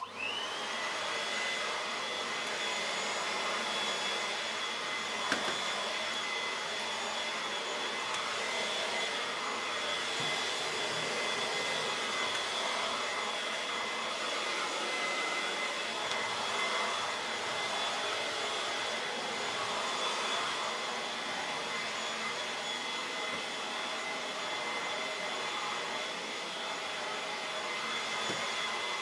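A vintage Moulinex 250 handheld mains vacuum cleaner, fitted with extension tubes and a carpet nozzle, is switched on. Its motor whine rises in pitch for an instant as it spins up, then runs steadily over the rush of air. There is a brief knock about five seconds in.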